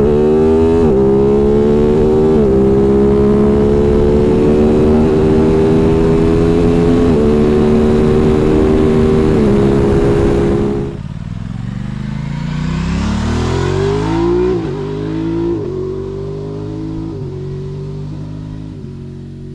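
Aprilia RS 660's parallel-twin engine accelerating hard through the gears, the revs climbing and dropping in quick upshifts. About halfway through the sound drops away sharply, then it pulls up through several more quick upshifts, quieter and fading.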